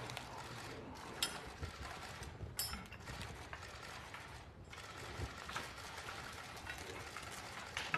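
Faint scattered clicks and rustling in a quiet room as a cloth flag on its staff is unrolled and unfurled, with a couple of sharper clicks about a second and two and a half seconds in.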